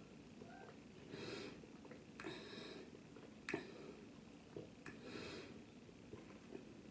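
A person drinking water through the straw of a plastic sport water bottle: faint swallowing clicks with three breaths through the nose in between.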